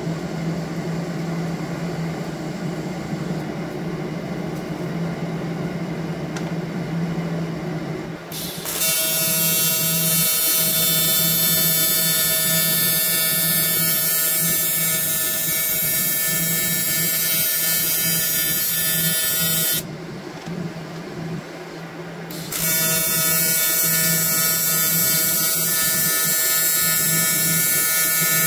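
TIG welding arc from an Everlast Typhoon 230 buzzing steadily as a seam is welded. It strikes about eight seconds in, breaks off for about three seconds near two-thirds through, then buzzes again. Before the first strike there is only a quieter steady hum.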